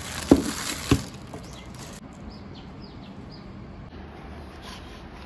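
Two sharp knocks in the first second. Then faint room tone with a few short, high, falling bird chirps, four of them close together just after the knocks.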